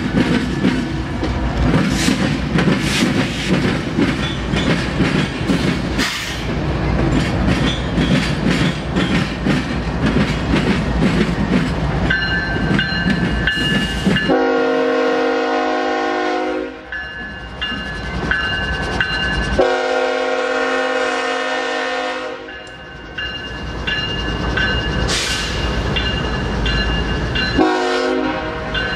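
Three BNSF GE diesel-electric locomotives moving slowly past, diesel engines rumbling and wheels clicking over the rails. About halfway through the horn sounds two long blasts, then a short one near the end, with a bell ringing.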